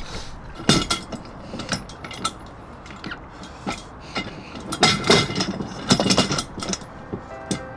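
Metal hardware clinking and knocking as it is handled: irregular sharp clicks, with a cluster of louder knocks about five seconds in.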